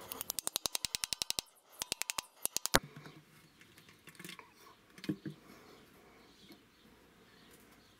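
Rapid light tapping, about a dozen sharp clicks a second, in two quick runs, the second ending in a louder knock: a tool being driven into the sealant seam between an engine's oil pan and block to break the pan free. A few faint knocks follow as the pan is worked loose by hand.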